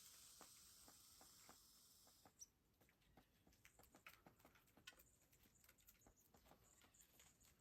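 Faint, irregular clicks and scratching, typical of squirrels handling and gnawing food. A soft hiss stops abruptly about two seconds in.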